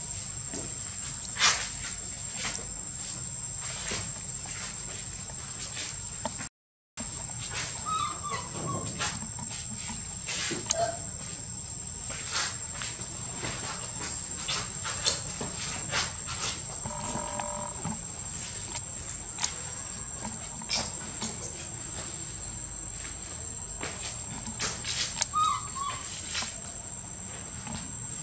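Insects drone steadily at a high pitch, with scattered clicks and a few short squeaks. The sound cuts out completely for a moment about seven seconds in.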